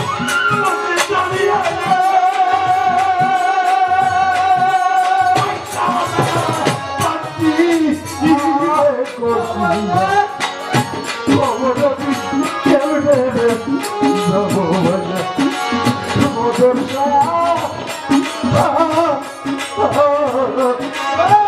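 Bengali folk singing (pala gaan) by a male singer over drum accompaniment. For about the first five seconds a long wavering note is held, then a sung melody follows, with steady drum strokes.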